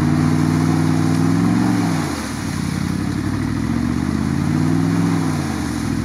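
Mercedes-Benz G-Class engine revving hard under load while the truck is stuck in deep mud, held high for a couple of seconds, easing off about two seconds in, then climbing again and dropping near the end.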